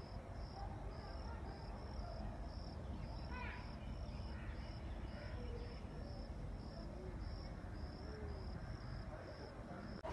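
An insect chirping steadily, a high, even pulse repeating about three times a second.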